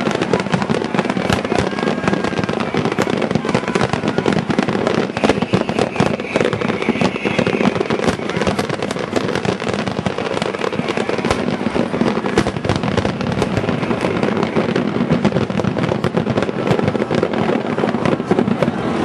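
Grand finale barrage of heavy aerial firework shells: a dense, unbroken run of overlapping bangs and crackle, with no pause.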